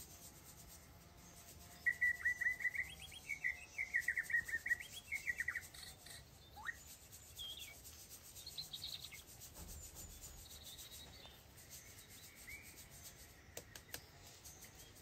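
A small bird singing a quick run of warbled chirps for a few seconds, then a few scattered chirps. A faint rubbing noise runs underneath.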